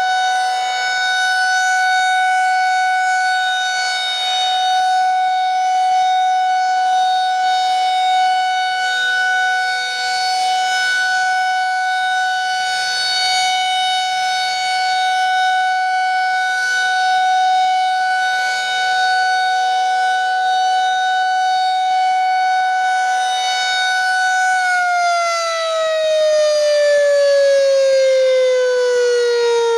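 Federal Signal 2001-SRNB battery-powered electromechanical warning siren sounding a steady tone during a test. About 25 seconds in, its pitch begins falling steadily as it winds down.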